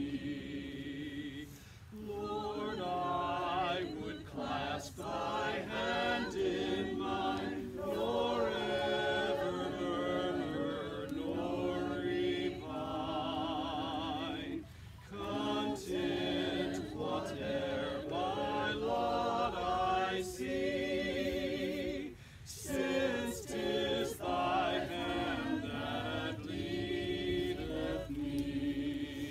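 A small group of people singing a hymn together, unaccompanied, in held, wavering notes with brief pauses between phrases.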